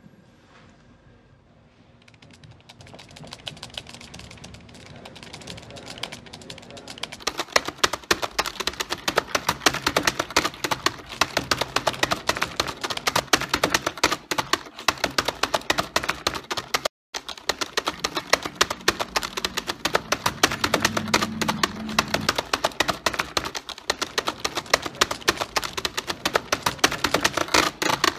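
Computer keyboard being mashed frantically, with flat hands slapping many keys at once. Faint clicking builds within a few seconds into a dense, continuous clatter of keystrokes. It breaks off briefly near the middle, then carries on.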